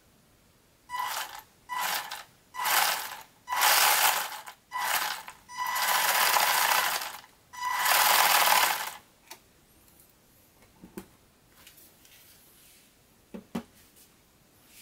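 WLToys 144001 1/14-scale 4WD RC buggy's electric motor and gear drivetrain spinning the wheels off the ground in about seven throttle bursts, the first ones short and the last few longer, each a whirring with a steady whine. A few faint clicks follow.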